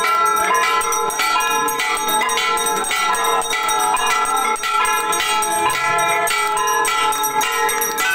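Temple bells ringing during an aarti, struck over and over in a quick, even rhythm so that several ringing tones overlap without a break.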